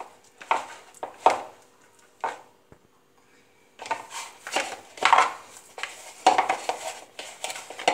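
Hands kneading a soft dough of flour, oil and water in a plastic bowl, with clinks from the bowl and the bangles on her wrists at each push. The strokes stop for about a second midway, then come thicker.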